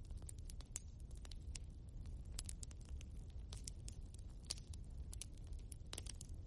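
Logs burning in a fireplace, crackling with irregular sharp pops and snaps over a low steady rumble of the fire.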